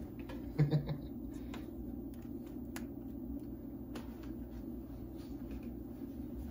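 Quiet room tone with a steady low hum, a brief low knock about half a second in, and a few faint clicks.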